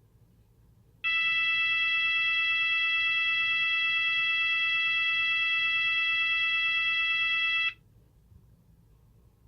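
Cooper MIN-T electronic fire alarm sounder giving one long, steady blast of a single unwavering tone. It starts suddenly about a second in, holds for nearly seven seconds and cuts off abruptly. This is one of its all-tone test patterns, with long silent gaps between blasts.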